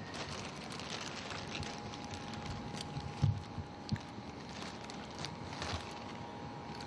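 Clear plastic candy bag crinkling and rustling as hands dig into it, with two low thumps about three and four seconds in.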